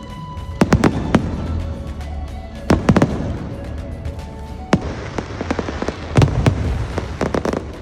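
Aerial fireworks bursting: sharp bangs in irregular clusters every second or two, over a steady low rumble.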